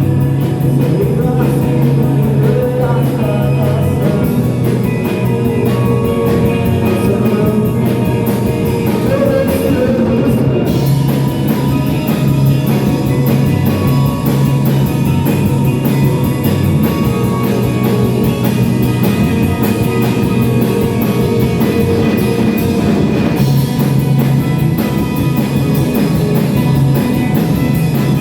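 Live band music: a rock-style song played steadily, with guitar and drum kit.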